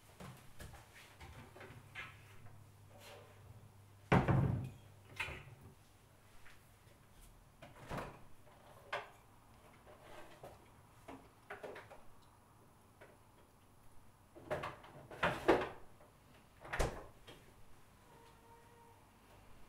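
Scattered knocks and clicks of kitchen handling: a fridge door and cupboard doors opening and shutting, and things set down on a worktop. The loudest knock comes about four seconds in, with a cluster of knocks near the end.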